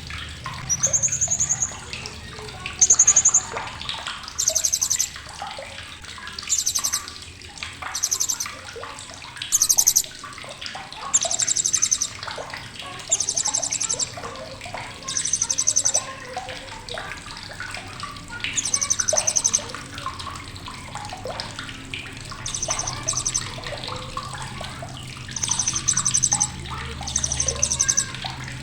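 Blue-crowned hanging parrot (Srindit) giving sharp, high, rapid chattering trills in short bursts about every second or two, over a steady hiss.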